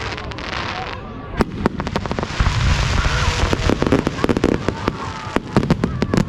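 Fireworks exploding: a run of sharp bangs, thickest in the second half, with a dense crackling hiss from crackle shells through the middle.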